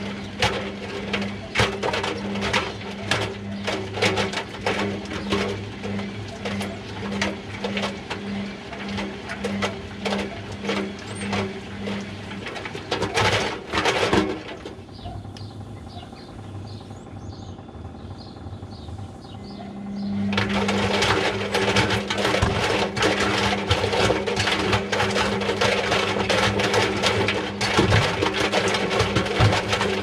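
Front-loading washing machine tumbling a load of rubber balloons: the motor hums in a pulse about twice a second, with dense knocking and rubbing of the balloons against the steel drum. About halfway through, the drum stops for several seconds and the sound falls to faint ticking. Then the drum starts again and the hum and tumbling return, louder.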